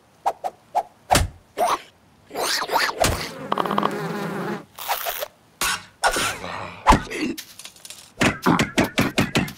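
Cartoon sound effects: a string of thunks and knocks, with a buzzing stretch like insect wings about a third of the way in and a quick run of knocks near the end.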